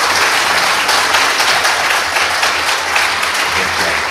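Congregation applauding, a dense, steady clapping that thins a little near the end.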